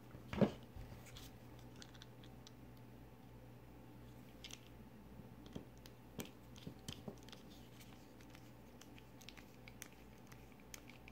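Small scattered clicks and scrapes of a Torx bit driver turning the pivot screw into a Benchmade 710 folding knife, with one louder knock near the start. A faint steady hum runs underneath.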